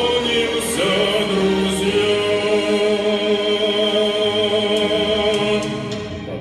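A remembrance song with a singer holding one long note with vibrato, which fades out near the end.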